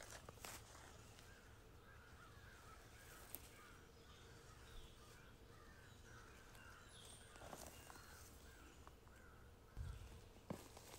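Faint forest quiet with a distant bird calling over and over, about two short calls a second. Near the end come a soft thump and a couple of light rustles as a hand handles the mushroom in the grass.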